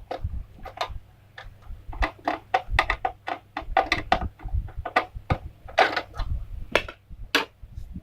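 A screwdriver working small screws in a hard plastic toy casing: a rapid, irregular run of clicks and small knocks.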